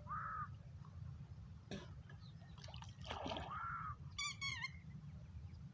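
Faint outdoor pond sound: water stirring around a swimmer going under, with a few short animal calls. One arched call comes at the start, another about three seconds in, and a quick wavering series a little after four seconds.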